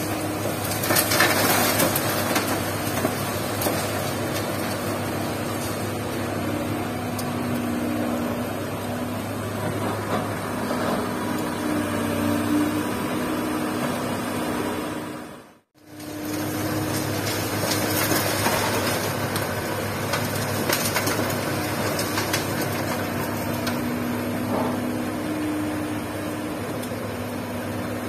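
Komatsu PC200-6 hydraulic excavator's diesel engine running steadily under load, with a clatter of gravel and stones tipped into a steel dump-truck bed about a second in. The sound cuts out for a moment about halfway through, then the engine hum picks up again.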